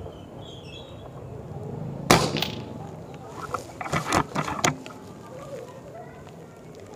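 Reximex Throne Gen2 PCP air rifle firing a .22 JSB Exact Jumbo Heavy 18.13-grain pellet: one sharp crack with a short ringing tail about two seconds in. A quick run of sharp clicks and knocks follows over the next couple of seconds.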